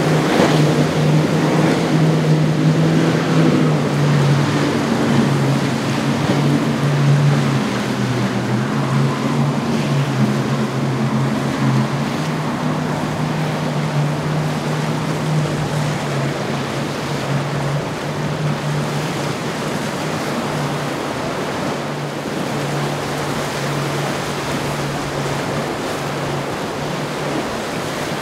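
Surf and rough water rushing, with wind on the microphone and the steady low drone of a motorboat's engines, which weakens over the last several seconds.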